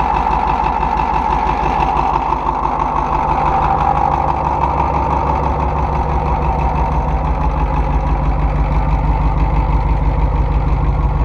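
Ford 6.9-litre IDI V8 diesel idling steadily with its diesel clatter, shortly after a cold start on glow plugs that don't work well.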